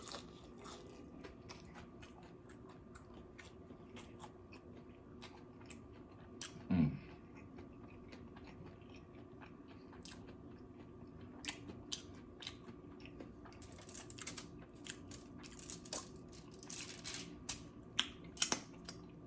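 Close-up eating sounds of a person chewing and biting food: many small wet mouth clicks and crunches, getting busier in the second half. A short low sound comes about seven seconds in.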